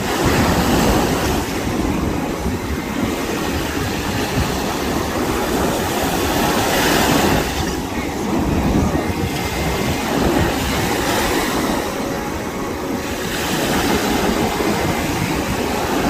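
Ocean surf breaking and washing up onto a sandy beach: a loud, continuous rushing noise that swells every few seconds as waves come in.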